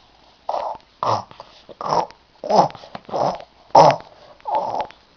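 A small child imitating an animal sound with a string of about seven short, breathy noises in quick succession, roughly every two-thirds of a second.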